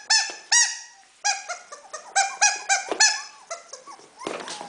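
Rubber chicken squeaky toy squeaking over and over, a dozen or so short squeaks in quick runs as it is squeezed.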